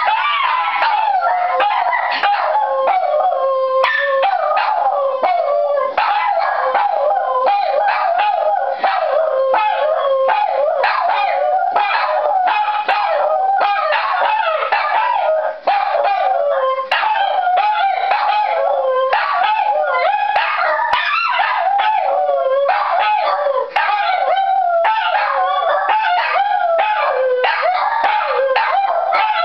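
Two Shih Tzu dogs howling together in long, wavering howls, set off by a fire siren.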